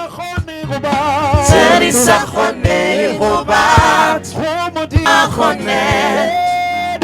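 Gospel music: singing with a wavering voice over a low drum beat, about one beat a second.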